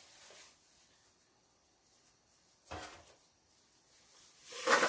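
Faint handling noises as a raw whole chicken is lowered into a slow cooker by plastic-gloved hands: a soft knock about halfway through, and a louder rustle near the end.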